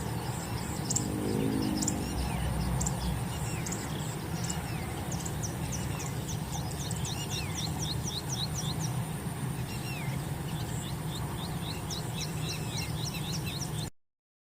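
Birds calling: scattered high chirps and quick runs of rapid chirps, about five a second, with some lower curling notes, over a steady low rumble. The sound cuts off suddenly near the end.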